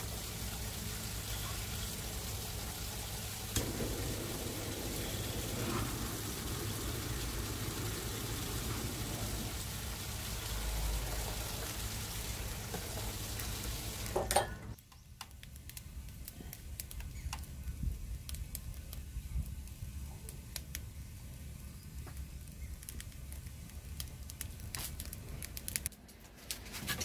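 Firewood burning in the firebox under a cast-iron gamasot cauldron: a steady hissing noise with occasional crackles. About halfway through it cuts off suddenly, leaving a quieter background with scattered faint ticks.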